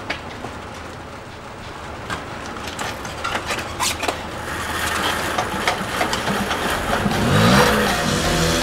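A moped being started and ridden off. Clicks and knocks come first, then its small two-stroke engine catches about halfway through and revs up, rising in pitch as it pulls away.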